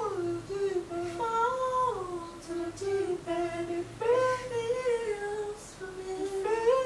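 A woman humming a wordless melody, holding notes that step up and down with short breaks between phrases, trying out a tune for a new song.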